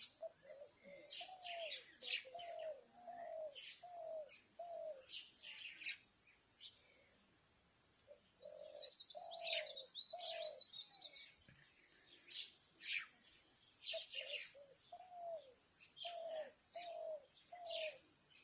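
A ghughuti dove cooing in three runs of repeated low notes, each note rising and then falling. Sparrows chirp over the top in short, high calls, with a twittering burst of chirps midway.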